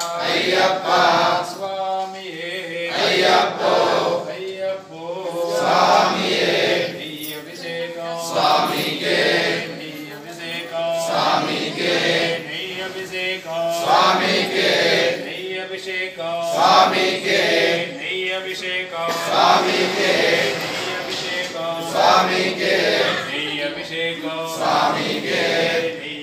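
Ayyappa devotees chanting a devotional chant together, the voices rising in repeated phrases about every two and a half to three seconds.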